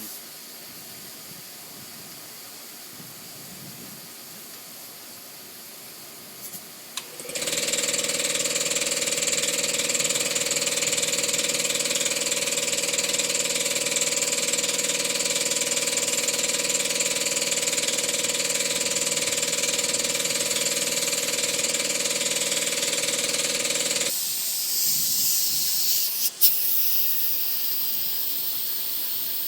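Air hissing softly through dryer-vent cleaning equipment. About seven seconds in, a motor starts and runs steadily with a high whine and a loud rush of air for about seventeen seconds, then cuts off suddenly. The hiss goes on afterwards, with a sharp click near the end.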